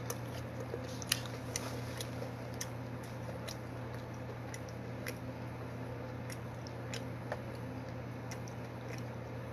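A person chewing food close to the microphone, with irregular wet mouth clicks and lip smacks, over a steady low hum.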